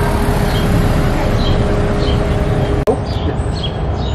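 Street ambience: a steady low rumble of traffic with small birds chirping repeatedly over it. The sound drops out for an instant about three seconds in, after which the chirping is busier.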